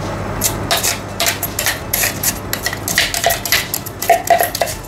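Metal spoon scraping and clinking against the inside of a blender bowl as it digs through freshly crushed ice: a quick, irregular run of light clinks and scrapes, a few ringing briefly.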